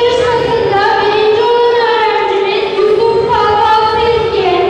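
Children singing a song in a high, sustained melody of long held notes.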